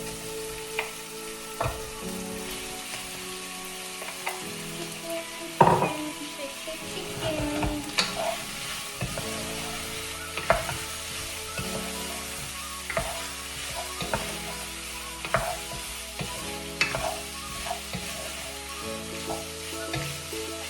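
Chicken pieces sizzling as they fry in hot oil with onions and garlic, while a utensil stirs them and scrapes and knocks against the pan many times; the loudest knock comes about five and a half seconds in.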